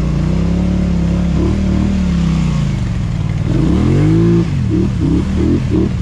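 850 ATV engine revving unevenly while wading through muddy water. About three and a half seconds in, a rising rev climbs and cuts off sharply, followed near the end by a quick string of short throttle blips.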